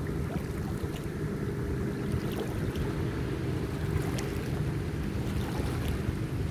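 Distant speedboat engine running steadily at speed while towing a water skier, with wind rumbling on the microphone.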